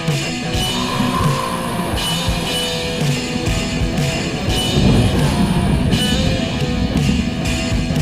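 Heavy metal music: electric guitar riffing over a drum kit, playing steadily throughout.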